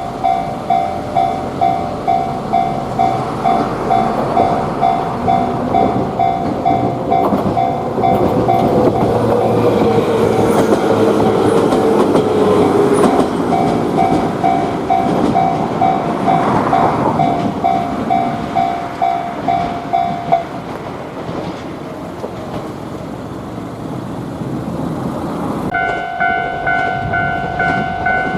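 Japanese level-crossing warning bell ringing about twice a second while a train passes, its wheels clattering over the rail joints, with a falling tone as it goes by. The bell stops about two-thirds of the way through. Near the end a different, steadier ringing tone starts.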